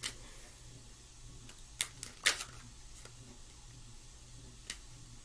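Tarot cards being handled and pulled from a deck in the hands, giving about six short, sharp clicks at uneven intervals as the cards snap against each other, the loudest a little after two seconds in, over a faint low hum.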